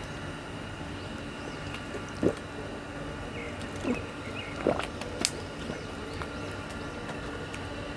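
Eating sounds while chewing fresh oysters: a few short wet smacks and slurps, four of them between about two and five and a half seconds in, over a steady low background hum.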